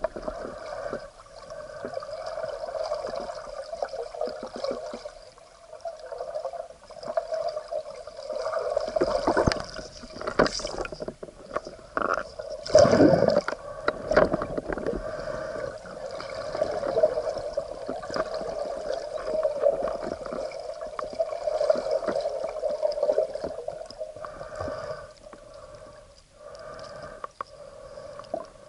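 Muffled water gurgling and sloshing around a camera in the water, with louder swishing surges about nine and thirteen seconds in; the one at thirteen seconds is the loudest.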